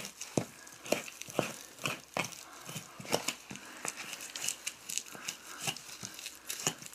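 Knife cutting and peeling meat and membrane away from a deer's rib cage: a run of short, wet crackling tears, about two a second.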